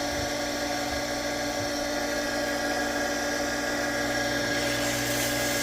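Electric well pump running steadily with a constant motor hum and whine, freshly primed and working to catch its prime and start drawing water.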